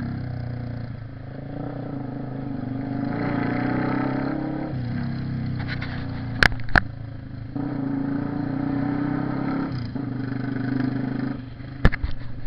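Honda CB 300R single-cylinder engine running through its exhaust, the revs held for a few seconds at a time and then dropping off. A few sharp cracks cut through, two about halfway through and two near the end.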